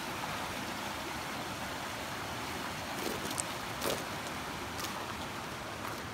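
Steady rushing noise of a creek running in the rain, with a few sharp ticks between about three and five seconds in.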